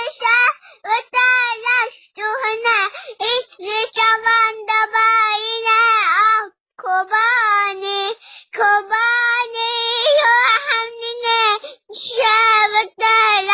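A toddler girl singing unaccompanied in a high voice, in short sung phrases broken by brief pauses for breath.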